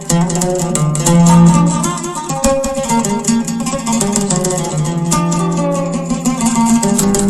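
Oud being played: a quick run of plucked notes in a melody over lower ringing notes.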